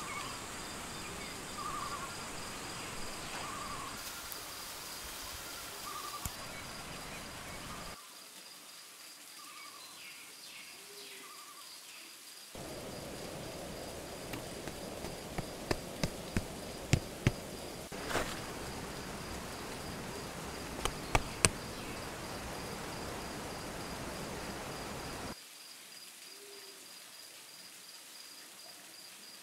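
Steady, pulsing high trill of forest insects. Around the middle a hand-held rock knocks a metal tent stake into sandy ground in a run of sharp strikes, with a few more a few seconds later. A bird gives short low hooting calls now and then in the first part.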